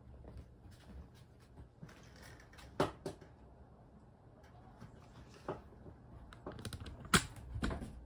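A handful of scattered light clicks and taps, the loudest about three seconds in and another just before the end, over a faint low hum.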